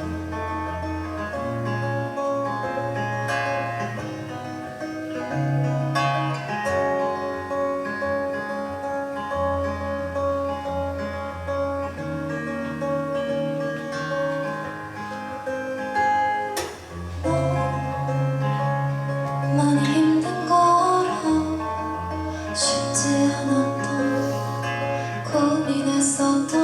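Live pop-rock band playing an instrumental passage led by guitar. Chords ring over a bass line that moves every couple of seconds. The playing grows louder and busier in the last several seconds.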